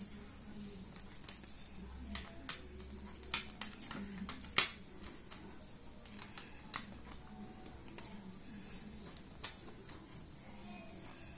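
Scattered small clicks and taps of fingers and plastic as a flat ribbon cable is worked into the connector on an LED TV panel's circuit board, with one sharper click about four and a half seconds in.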